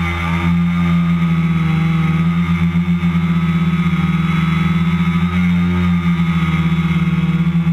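Electric motors and propellers of a radio-controlled BoxCopter multirotor running at a steady hum with a slight waver as the craft moves across the water.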